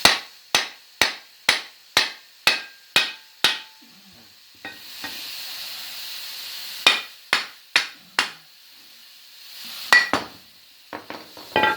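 Hammer blows on a steel wheel hub and brake rotor, about two a second: eight in a row, then four more after a pause and a couple near the end, each with a short metallic ring. This is a car's rear hub and rotor being knocked loose from the spindle.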